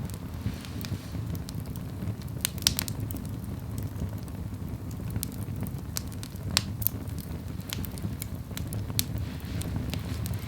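Firewood burning in the firebox of a clay-walled ondol room: a steady low rumble with irregular sharp crackles and pops, two louder pops about a third of the way and two-thirds of the way in.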